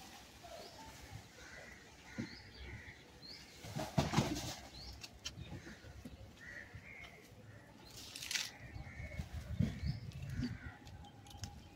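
Small birds chirping in short repeated notes, with two loud rustling bursts, one about four seconds in and another about eight seconds in.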